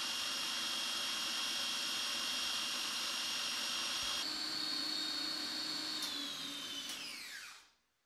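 Electric food processor motor whipping chilled cream with banana and frozen strawberries into a thick mousse, running with a steady high whine. Its pitch shifts about four seconds in, then the motor is switched off and the whine falls away as the blade spins down near the end.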